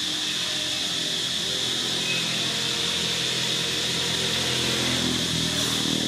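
Steady outdoor ambience: a continuous high-pitched drone with a low engine-like hum underneath, unchanging throughout.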